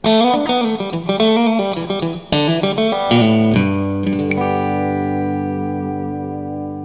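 Intro music: a run of quick notes, then a chord struck about three and a half seconds in that rings on and slowly fades.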